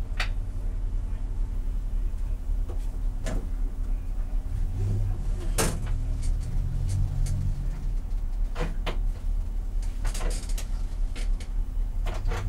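BMW E90 330i's straight-six engine idling steadily at about 700 rpm, heard from inside the cabin. A handful of short clicks and knocks, people moving in the car, stand out over it every couple of seconds.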